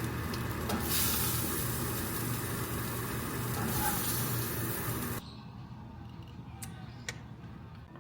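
Food sizzling in a hot pan. The sizzle cuts off suddenly about five seconds in, leaving a quieter background with a few light clicks.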